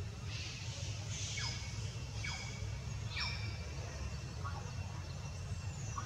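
Outdoor ambience in tree canopy: a string of short, high chirps that each fall quickly in pitch, about one a second, over a steady low rumble and faint steady high insect-like tones.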